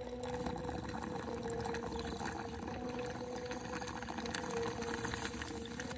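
Bubbling, watery noise full of fine quick crackling ticks, over a steady held drone from the intro music.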